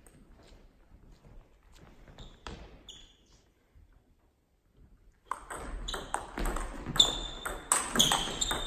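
Table tennis rally: sharp clicking pings of the ball off the bats and the table, coming quickly one after another from about five seconds in. Before that there are a couple of light ball taps, then a short hush before the serve.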